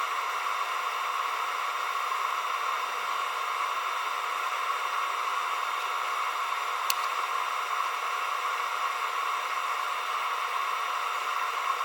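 Steady electric fan hiss, as from a hot air rework station or a fume extractor, with one faint click about seven seconds in.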